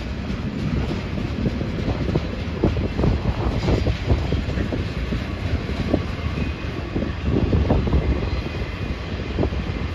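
Union Pacific mixed freight train's tank cars and boxcars rolling past: a steady rumble of steel wheels on the rails, with irregular clacks and knocks from the wheels and couplings.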